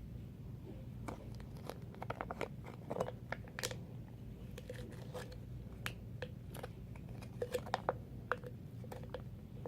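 Irregular small clicks and crinkles of the face-mask container being handled and squeezed as the mask is poured into a glass, with a few light taps that ring briefly.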